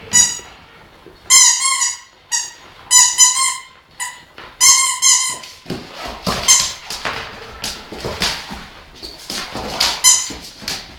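A series of loud, high-pitched squeaks, about five in the first six seconds, each roughly half a second long. Rougher, noisier scraping sounds follow, with a fainter squeak near the end.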